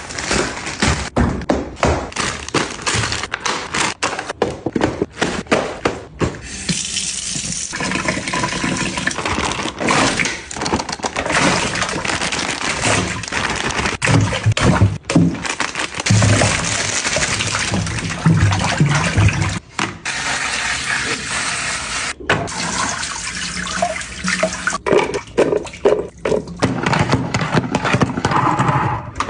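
Kitchen restocking sounds: water running and being poured, among frequent clicks and knocks of containers and packaging being handled.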